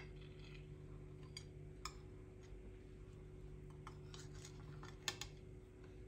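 A cake server cutting into a glazed cake: faint scattered clicks and taps as the blade meets the plate, the sharpest a pair about five seconds in. A low steady hum runs underneath.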